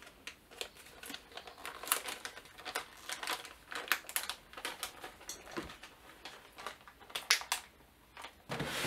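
Packaging of a Disney mystery pin pack being handled and opened, giving irregular crinkling and small clicking sounds.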